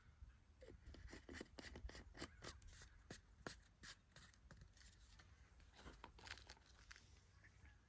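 Faint, irregular light clicks and scraping, as of small parts being handled during a build.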